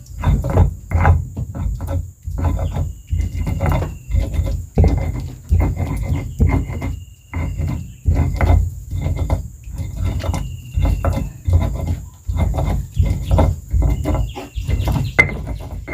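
Loud, irregular knocks and rustles. Behind them is a steady high insect drone, and a faint, slightly falling whistle comes about every three to four seconds.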